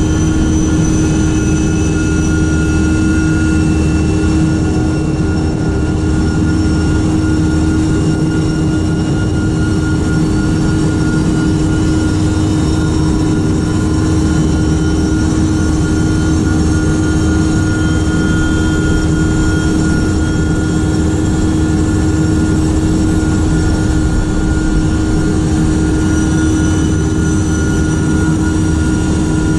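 Boeing 747-200F jet engines running loudly, heard close under the nose: a steady deep hum with thin turbine whines that slowly climb in pitch midway and again near the end, as engines spool up during engine start.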